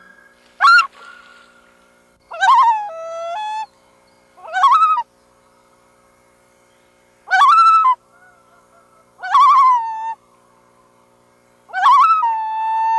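Loons calling, six wavering calls about two seconds apart, each starting sharply and sliding down in pitch, some short and some held for about a second.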